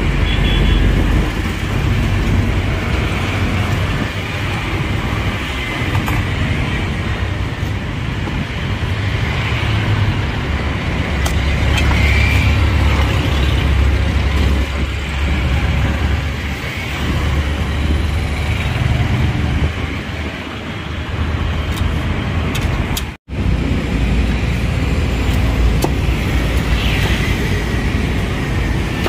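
Steady street traffic noise, a low rumble of passing vehicles that swells and eases. The sound cuts out for a split second about three quarters of the way through.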